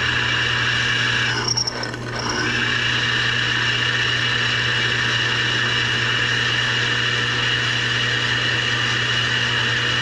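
Drill press running with its twist bit cutting a pilot hole through steel plate lubricated with WD-40: a steady motor hum under a high, steady cutting whine. The cut drops away briefly about two seconds in, then resumes.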